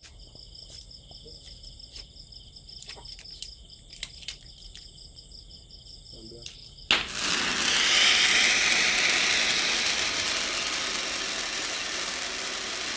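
Crickets chirping steadily with a few sharp clicks. About halfway through, a ground fountain firework ignites with a sudden loud hiss of spraying sparks that carries on, slowly easing.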